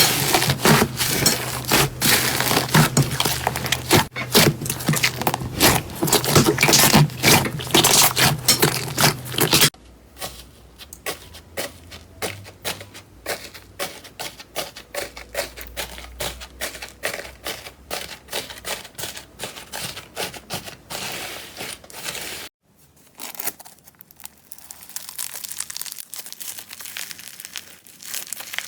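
Slime being squeezed and worked by hand, giving dense, rapid crackling and clicking. It is loud for about the first ten seconds, then turns quieter after abrupt changes near ten seconds and again near twenty-two seconds.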